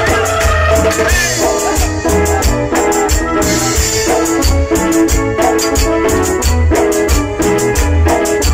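Live tropical cumbia from a dance band: a keyboard melody over drums and bass with a steady, even dance beat.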